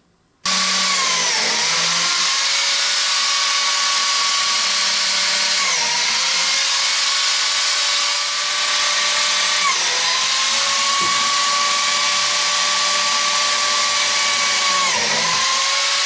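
Biscuit joiner's motor running with a steady high whine, starting abruptly half a second in. The pitch sags briefly four times as the blade is plunged into the wood to cut biscuit slots.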